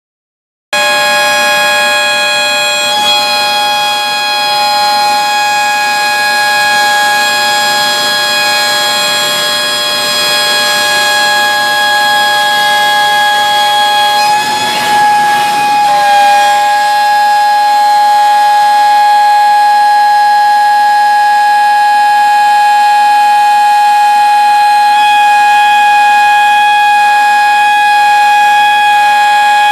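Zünd cutter's router spindle at 50,000 rpm milling a sheet of Dibond aluminium composite panel: a loud, steady, high-pitched whine made of several tones together. It starts abruptly under a second in and wavers briefly about halfway through.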